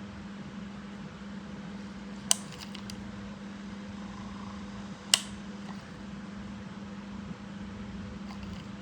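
Small electric motor of a miniature washing machine running with a steady hum. Two sharp clicks are heard, a few seconds apart.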